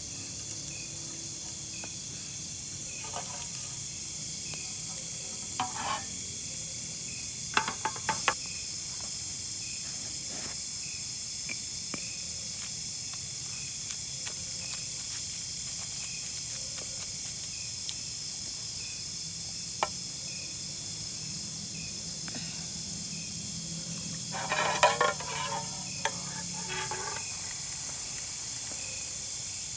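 A steady chorus of insects, with occasional short clatters of cooking utensils and pans, the busiest stretch of them a few seconds before the end.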